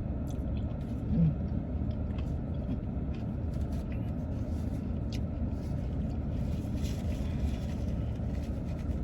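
Steady low rumble inside a parked car's cabin, with faint scattered clicks and small noises of someone eating.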